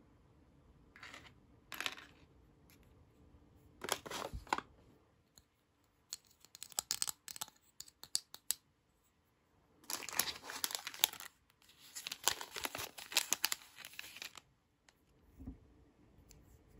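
Thin plastic packaging crinkling in several short bursts, with a run of light clicks from small plastic miniature toy pieces being handled in between.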